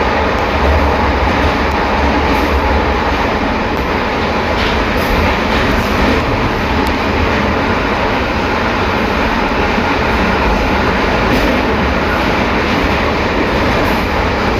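Metro train car running between stations, heard from inside the car: steady traction motor and inverter noise with a deep growl from the reduction gearbox, which is probably short of lubrication.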